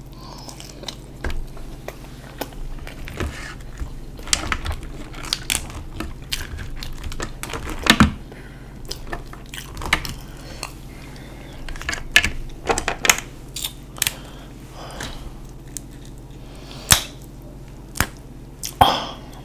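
Close-miked eating sounds: chewing, and irregular clicks and cracks of boiled shellfish shells being broken and peeled by hand, with a few sharper snaps among them.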